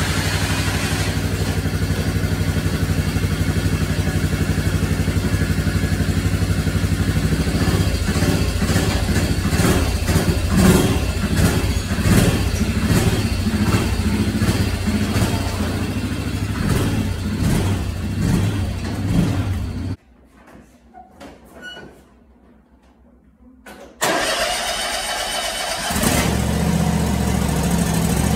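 A Can-Am side-by-side UTV engine running, revved up and down several times. After a short break, a John Deere riding mower's engine starts near the end and runs at a lower, steadier note.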